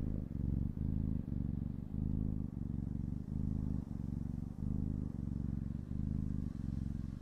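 Kitten purring right against the microphone: a loud, low rumble that breaks briefly about every two-thirds of a second as it breathes in and out.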